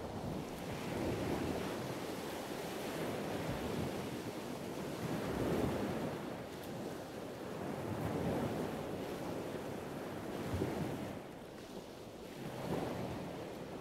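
Surf washing onto a sandy beach at night, the noise swelling and falling every few seconds with each wave, with some wind on the microphone.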